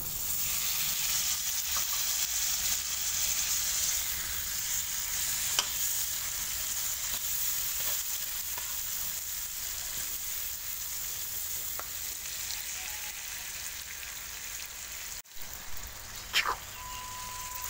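Chopped chillies, shallots, garlic and tomatoes sizzling in hot oil in a wok, a steady hiss, with a metal spatula stirring and tapping against the pan. The sizzle breaks off briefly about 15 seconds in, and a few clinks follow near the end.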